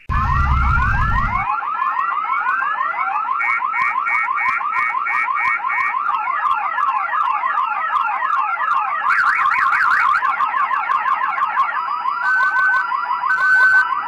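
Electronic car alarm siren cycling through its tone patterns: a rapid run of rising whoops, a stretch of fast pulsed beeps, crossing up-and-down warbling sweeps, then steady on-off beeps near the end. A low rumble runs under the first second and a half.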